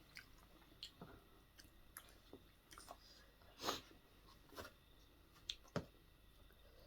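Quiet close-up eating sounds: chewing with scattered short wet clicks and smacks, the loudest a little past the middle.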